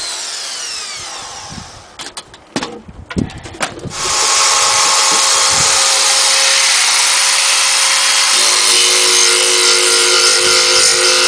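Handheld electric angle grinder winding down with a falling whine, a few knocks as it is handled, then switched on about four seconds in and running steadily at full speed while its disc trims the edge of a small boat cabin box.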